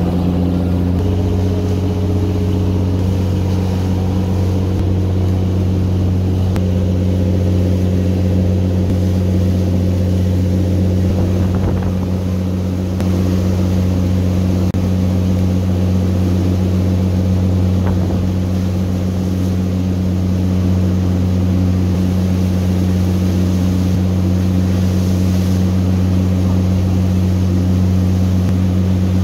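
Tour boat's engines running steadily at speed, a deep unchanging drone, over the rush and splash of the churning wake.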